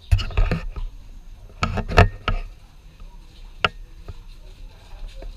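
A few loud knocks and bumps: a cluster near the start, another about two seconds in, and a single sharp knock a little later.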